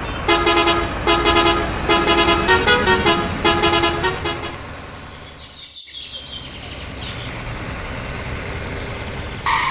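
A vehicle horn honks in a tune-like run of longer and shorter toots for about four seconds. Then a steady engine-like running noise follows, with a short loud burst near the end.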